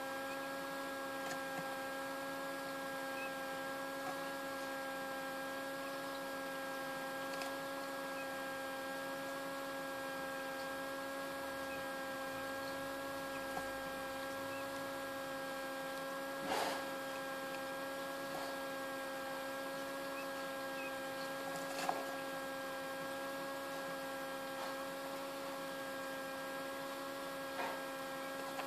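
Small egg incubator's fan running with a steady hum, with a few short sharp taps scattered through it, two of them louder partway through.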